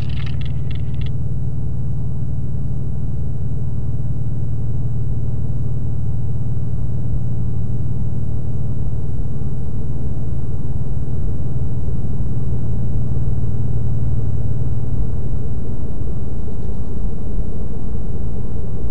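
Electronic music: a loud, steady low drone, built from a single sample of a ring scraped across a radiator and edited into a sustained tone, slowly swelling. A crackly, scratchy high texture fades out about a second in.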